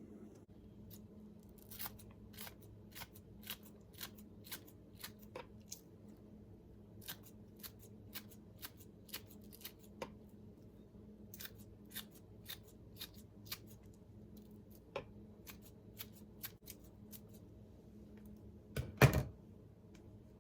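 Lettuce leaves being harvested: a run of crisp snips, roughly two a second and somewhat irregular. A single louder thump comes near the end.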